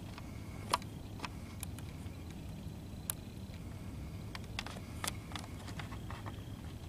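Steady low background rumble with a few faint, sharp clicks scattered through it.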